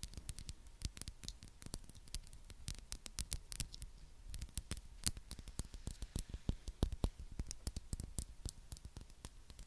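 Fingernails tapping and scratching on an ornate mermaid-topped perfume bottle: many quick, irregular clicks and ticks, some sharper than others.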